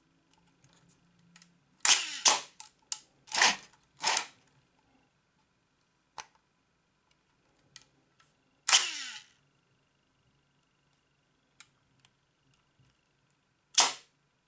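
Kiev 88 medium-format SLR's mirror and focal-plane shutter firing, several sharp mechanical clacks. Two close pairs come in the first few seconds, another clack with a short rattle about the middle, and one near the end. Small faint clicks from the wind and speed knob come between them.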